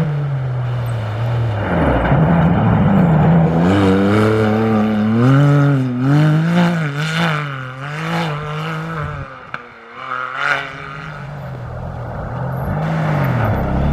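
Rally-raid vehicle's engine revving hard, its pitch rising and falling repeatedly as it accelerates and lifts. It drops away briefly about two-thirds of the way in, surges once, then grows louder again near the end.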